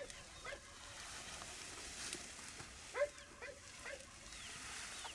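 Faint, short, high animal calls: a couple near the start, then a quick run of four or five about three seconds in.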